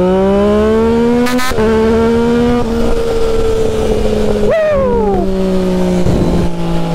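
A 2023 Yamaha XSR900's inline-three engine, breathing through a full KELPI stainless exhaust, accelerates hard. The revs climb and are cut by a quick-shifter upshift about a second and a half in, climb again, then hold steady. About four and a half seconds in there is a sharp rev spike, and then the revs fall away.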